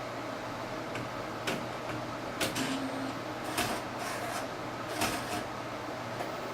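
Inkjet printer's mechanism clicking and clunking at irregular intervals during a print-head cleaning cycle, over a steady noisy background.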